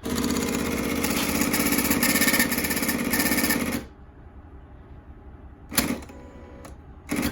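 Scale-house kiosk ticket printer printing a weigh ticket: a steady mechanical rattle for about four seconds that stops abruptly, followed by two short noises near the end.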